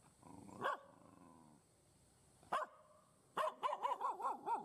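A dog barking: one bark about half a second in, another about two seconds later, then a quick run of about six short barks near the end.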